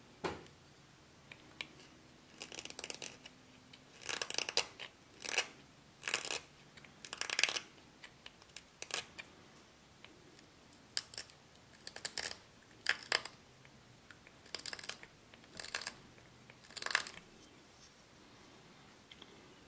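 Small Japanese carving chisel cutting into a tagua nut (vegetable ivory): about a dozen short, dry scraping cuts at irregular intervals, stopping near the end.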